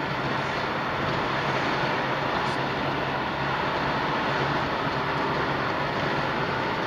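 Steady road and engine noise of a car driving along a city street, heard from inside the car, with no change in level throughout.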